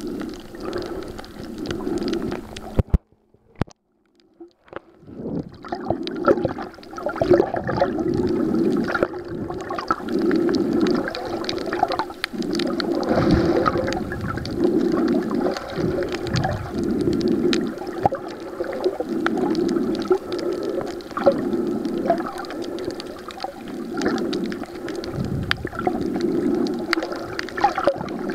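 Muffled sloshing and gurgling of water around a submerged waterproof camera while snorkelling, coming in uneven surges every second or so. About three seconds in there is a sharp knock, then it goes almost silent for about two seconds before the water noise returns.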